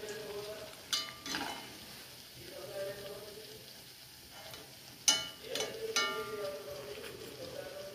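Chicken cutlets sizzling as they deep-fry in hot coconut oil in a wok. A metal slotted spoon clinks against the pan a couple of times about a second in, and again several times around five to six seconds in as cutlets are lifted out.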